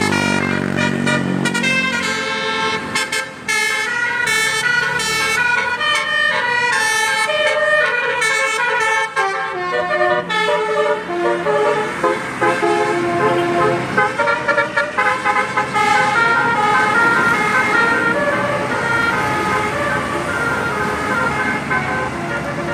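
Bus 'telolet' multi-tone air horn playing a long string of quick tooting notes that step up and down in pitch like a tune.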